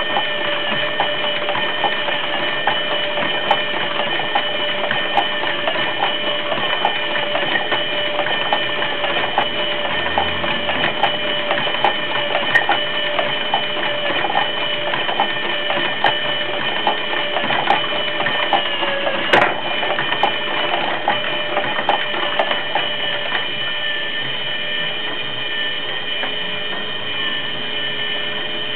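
Mechanical automaton running: a steady motor whine with a stream of small clicks and knocks from its moving parts, and one sharper knock about two-thirds of the way through. The clicking thins out near the end.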